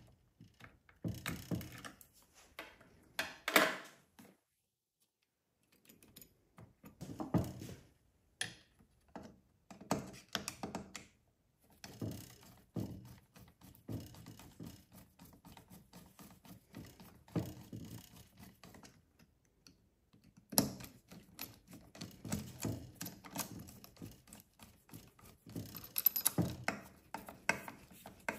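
Hands fitting a carburetor back onto a chainsaw and tightening it down: scattered clicks, taps and knocks of small metal and plastic parts, with quicker runs of small clicks in the second half.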